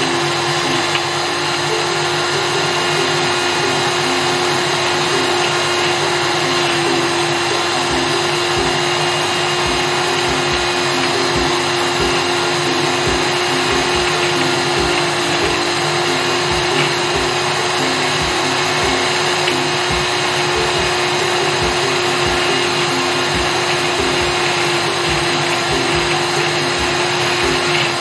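Small personal blender's motor running at a steady speed, its blades puréeing fresh peppers, onion, garlic and spices into a paste. A steady whine with one clear hum-like tone and no pauses.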